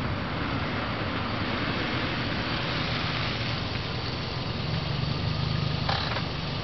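A first-generation Scion xB's 1.5-litre four-cylinder engine running at low speed as the car rolls slowly up and then idles. A brief click comes near the end.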